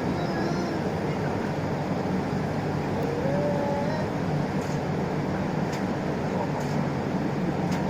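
Isuzu Erga LV290 city bus running on the road, heard from inside the cabin: a steady diesel engine drone with road and tyre noise. About three seconds in there is a brief rising tone, and a few faint ticks follow in the second half.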